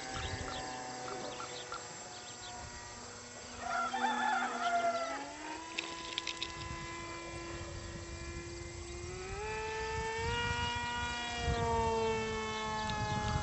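Electric brushless motor and pusher propeller of a small RC plane flying overhead: a steady whine whose pitch steps up twice, about five seconds in and again near ten seconds, then dips slightly near the end. A brief louder warbling sound comes about four seconds in.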